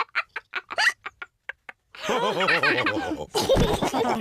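Cartoon pig characters from Peppa Pig laughing: a run of short staccato sounds, a pause, then longer wobbling laughter with a loud noisy burst near the end.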